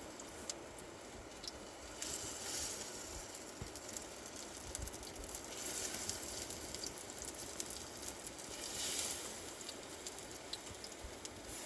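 Steady hiss with scattered small crackles and ticks, swelling three times: about two, six and nine seconds in.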